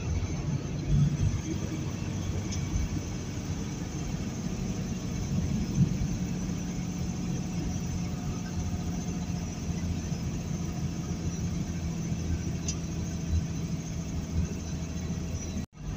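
Heavily loaded semi truck's diesel engine running steadily with road and tyre noise, heard from inside the cab as a low, even drone. The sound drops out for a moment just before the end.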